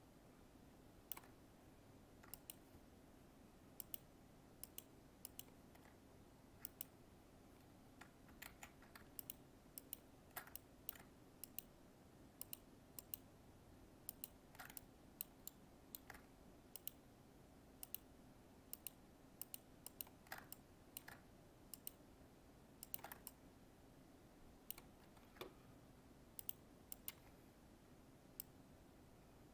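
Faint, irregular clicks of a computer mouse, some in quick pairs, over a low steady hum.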